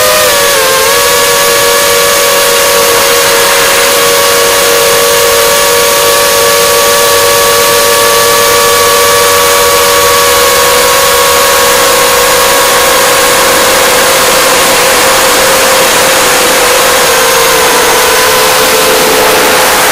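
Racing quadcopter's four Racerstar 2403 2300KV brushless motors spinning HQ 5-inch three-blade props, heard from the onboard camera: a loud, steady high-pitched whine at near-constant throttle over a heavy rush of wind and prop wash. The pitch dips slightly about a second in and drops a step near the end as the throttle eases.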